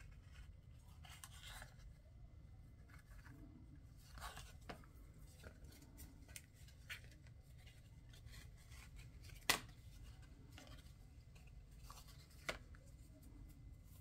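Faint rustling of black twine being threaded through a paper tag and tied by hand, with a sharp click about nine and a half seconds in and a smaller one near the end.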